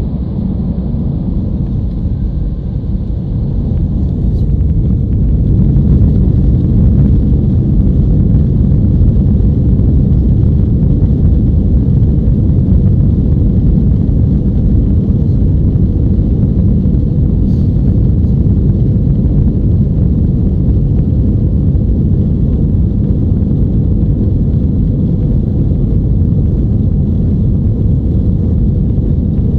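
Airliner's jet engines heard from inside the passenger cabin as a deep, steady rumble, growing louder over the first several seconds and then holding level.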